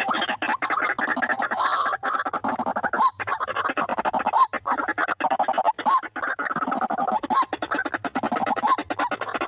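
White-breasted waterhens calling, a dense, unbroken run of rapid harsh quacking notes with short rising notes mixed in.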